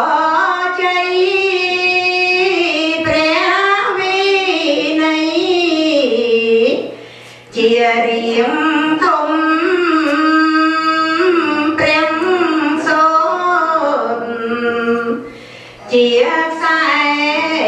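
A high voice singing a slow melody in long held, wavering phrases, with short breaks about seven and fifteen seconds in.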